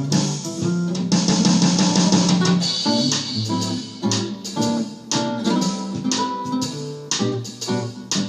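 Instrumental break in a blues song: a plucked guitar line over bass and a drum beat, with no singing.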